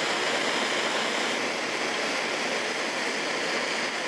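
Handheld gas torch burning with a steady hiss, its flame playing on a glass flask of water.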